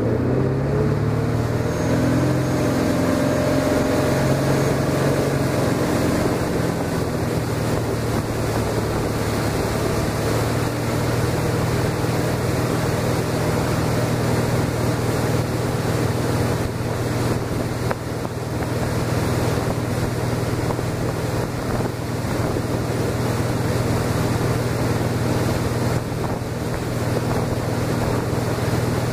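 Direct-drive inboard engine of a 1999 MasterCraft ProStar 205 ski boat pulling away, rising in pitch over the first few seconds, then running steadily at speed under the load of ballast bags about 80% full. Wind buffets the microphone and the wake's water rushes.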